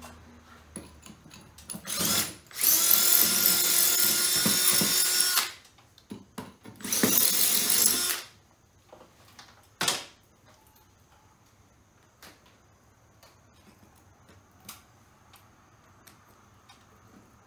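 Power drill running in short bursts: a brief blip, then a steady run of about three seconds and another of about a second and a half. A single sharp knock follows about ten seconds in.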